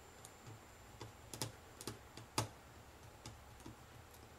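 Faint, irregular small clicks and taps of a screwdriver working the strain relief clamp screws of a plastic rewirable C14 IEC plug, the sharpest click about halfway through.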